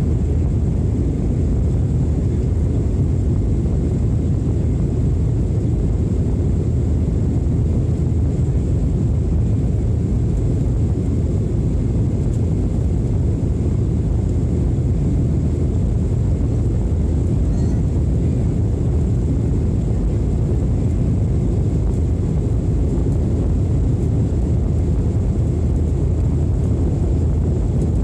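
Airliner cabin noise in flight: a steady low drone of the engines and rushing air, unbroken throughout, with a faint thin high tone on top.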